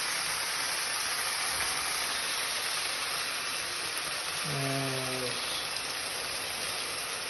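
Chunks of chicken sizzling in a hot frying pan on high heat, a steady hiss. A brief low hum sounds just past halfway.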